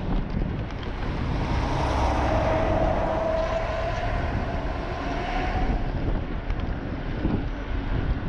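A heavy diesel dump truck's engine and tyres running past and pulling away, mixed with wind rushing over the moving bicycle camera's microphone. Steady rumble with a faint whine in the middle.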